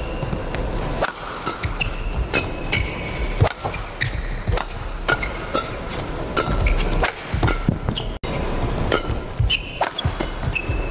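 Badminton rally: rackets strike the shuttlecock in a quick, irregular exchange, with short squeaks of players' shoes on the court mat.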